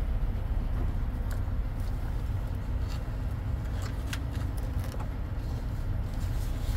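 Steady low rumble, with a few scattered small clicks and crunches as a person steps over charred debris on a burned truck's cab step.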